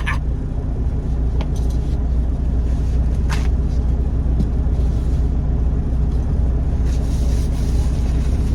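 Steady low hum of an idling truck engine, heard from inside the cab, with a couple of faint clicks.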